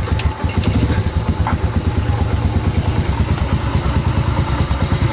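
Honda EX5 motorcycle's single-cylinder four-stroke engine idling steadily just after being started, freshly filled with new engine oil. A few light clicks sound in the first second over the even, rapid exhaust pulse.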